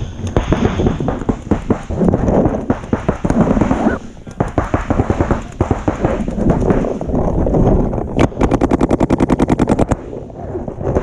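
Paintball markers firing, a near-constant clatter of pops from several guns. Near the end one marker close by fires a fast, even string of shots at about a dozen a second.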